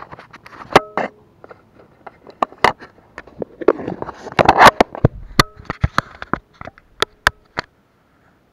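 Close handling noise on a chest-mounted action camera and its plastic waterproof housing: an irregular string of sharp clicks and knocks with some rubbing, a few of the knocks ringing briefly. It stops abruptly near the end.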